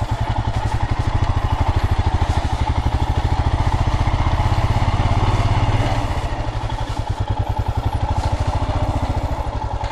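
Motorcycle engine running at low speed while being ridden, with a steady, even pulsing beat; it eases off slightly about six seconds in as the bike slows.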